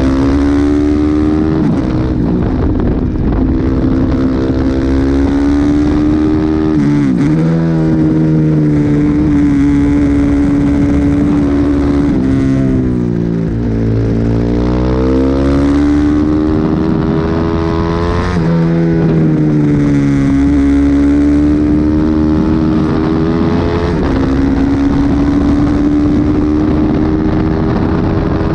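Motorcycle engine running at high revs, heard from the bike itself, its pitch dropping sharply three times as it slows for corners and climbing back as it accelerates out, with wind rushing past.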